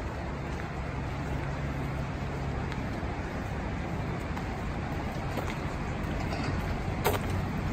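Steady drone of interstate traffic, a low hum under an even rushing noise. A sharp click sounds near the end.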